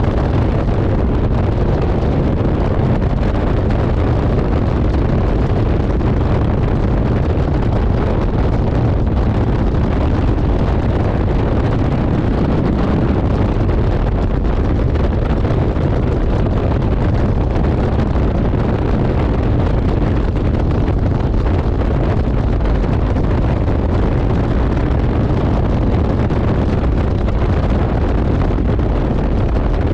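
Steady rush of wind buffeting the microphone of a bass boat running at about 77 mph, mixed with the drone of its outboard motor underneath.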